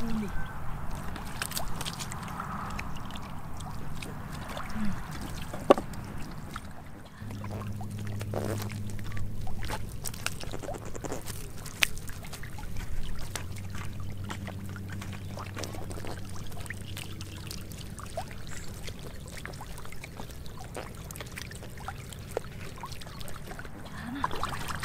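Stranded catfish flopping and thrashing in shallow muddy water, with scattered slaps, splashes and sloshes.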